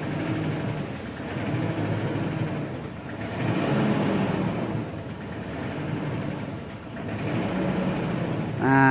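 Mitsubishi Strada Triton's common-rail diesel engine idling a little rough, with a tak-tak-tak ticking at idle, heard from the driver's seat. The mechanic suspects the sealing ring of an injector is leaking.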